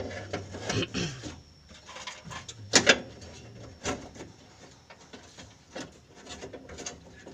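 Scattered knocks and clicks of tools and parts being handled, the loudest about three seconds in, with a run of lighter clicks near the end.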